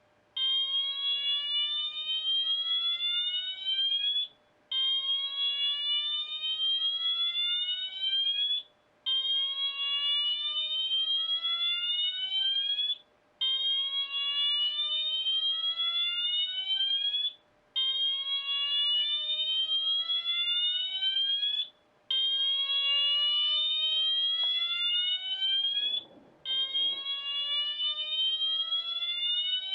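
Wheelock MT4 fire alarm horn sounding its slow whoop tone: a loud electronic tone rising in pitch over about four seconds, then cutting off. It repeats after a brief gap, seven whoops in all.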